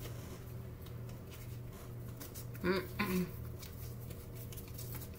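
Quiet pause filled by a steady low hum and faint rustling and clicking of tarot cards being handled, with two brief murmured vocal sounds about halfway through.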